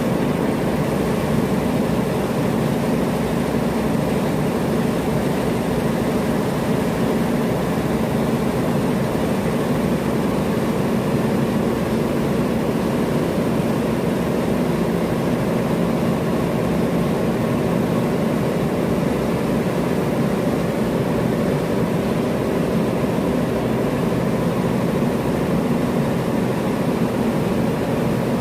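Refrigeration plant machinery running with a steady, loud hum that does not change.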